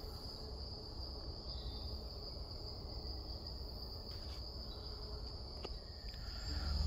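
Steady insect chorus in the forest, one continuous high-pitched trill that does not change, with a few faint clicks.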